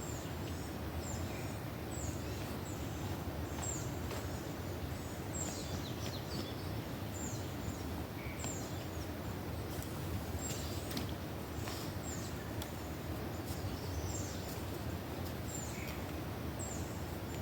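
Birds chirping, mostly one short high call that drops in pitch, repeated about once a second, with a few lower chirps mixed in. Under them runs a steady low rushing noise.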